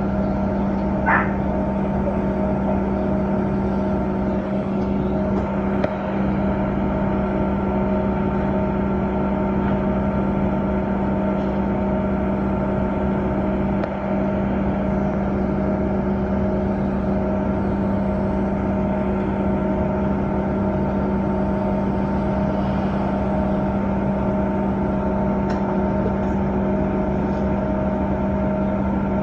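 City transit bus standing with its engine and cabin machinery running, heard from inside the cabin: a steady drone with a strong low hum and several fainter steady tones above it. A short high squeak sounds about a second in.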